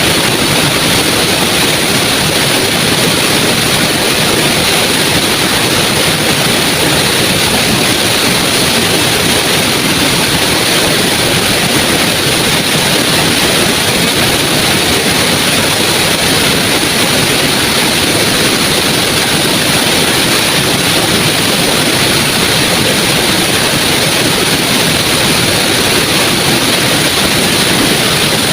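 Small waterfall: water falling and rushing in a steady, unbroken stream.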